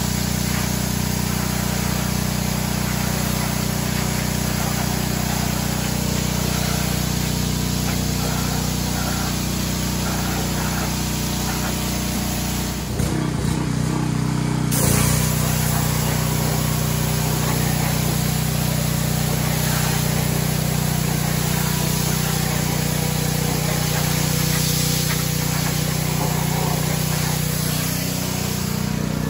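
Pressure washer running steadily, its undercarriage spray bar hissing as it blasts water onto wet pavement and the underside of a zero-turn mower deck, with a steady low hum beneath the spray. The sound shifts briefly about halfway through, then carries on as before.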